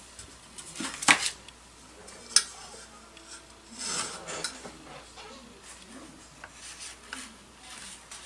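Metal tools and a metal straightedge being picked up, knocked and laid down on a wooden building table: a sharp clatter of clinks about a second in, a single clink a little before two and a half seconds, then sliding and rubbing with a few lighter taps.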